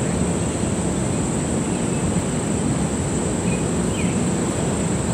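Wind rumbling on the microphone over a steady high-pitched insect chorus, with a few faint bird chirps about three and a half seconds in.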